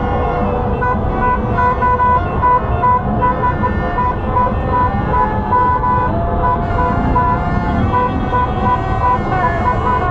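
Car horns honking over a dense din of traffic, one horn tapped out in quick short beeps from about a second in while other horns hold long steady notes.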